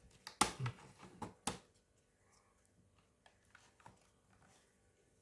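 Sharp plastic clicks and scrapes as a thin pick works along the seam of a laptop's plastic bottom case, prying it open. About four clicks come in the first second and a half, then only faint small ticks.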